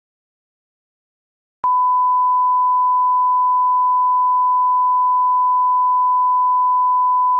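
Silence, then about one and a half seconds in a steady 1 kHz line-up tone starts with a small click and holds unchanged: the reference tone that goes with colour bars.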